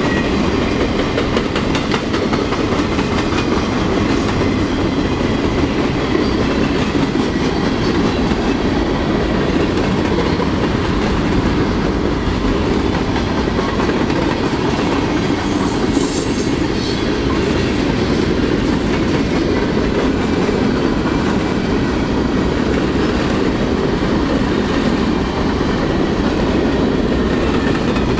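Freight cars of a mixed freight train rolling past at close range: a steady low rumble of steel wheels on rail with a rapid clickety-clack of wheels over rail joints. A short high-pitched sound rises about halfway through.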